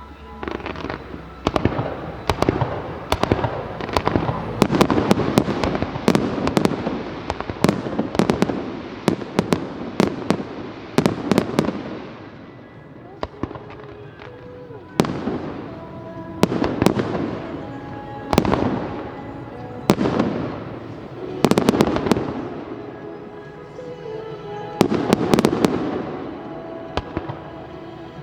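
Fireworks display: shells bursting and crackling in quick clusters, packed tight for the first dozen seconds, then in waves every couple of seconds. Music plays underneath.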